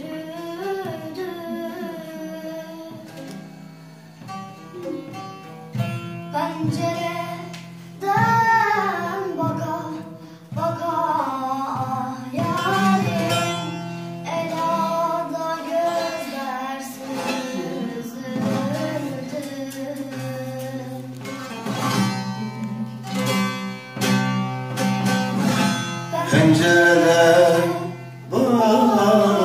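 A bağlama (long-necked Turkish saz) strummed and plucked as accompaniment to a Turkish folk song sung by a girl, with a man's voice joining in near the end.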